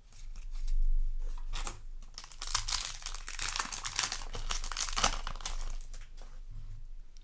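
Foil booster-pack wrapper crinkling and rustling as it is handled, with tearing-like crackle, loudest in the middle and dying away after about five seconds.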